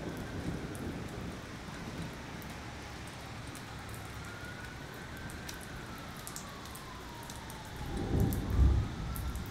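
Heavy rain falling, with scattered sharp drop ticks, while a siren wails slowly up and down. A low rumble of thunder swells near the end.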